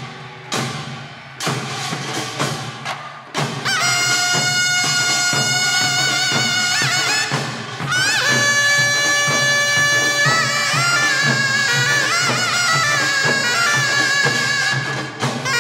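Taepyeongso, the Korean double-reed shawm, playing a loud, bending, ornamented melody over drum strokes in a pungmul band. The opening few seconds hold only scattered drum strokes before the shawm comes in.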